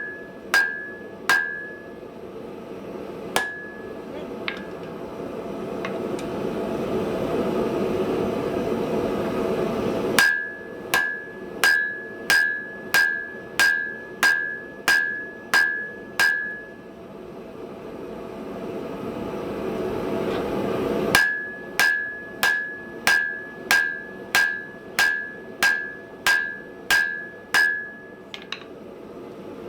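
Hand hammer striking hot round steel stock on an anvil, drawing it out, in spells of quick blows at about two a second, each blow with a short bright ring. Between the spells a rushing noise grows steadily louder.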